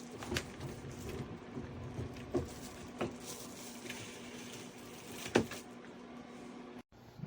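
A few sharp clicks and knocks of hard objects being handled, the loudest about five seconds in, over a faint steady hum; the sound cuts out abruptly near the end.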